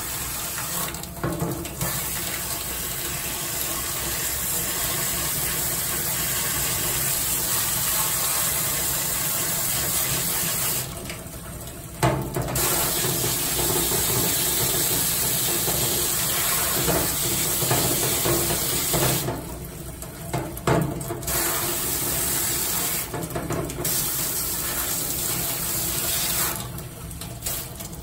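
Warm tap water running from a faucet into a stainless-steel utility sink, splashing over an outboard carburetor body held in the stream to rinse off water-soluble carb cleaner. The rush thins out briefly several times as the part is moved, and drops near the end as the carburetor is lifted out.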